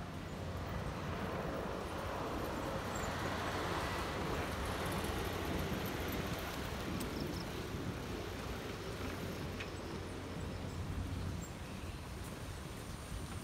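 Steady rushing of wind on the microphone and tyres rolling on asphalt while riding an oBike share bicycle.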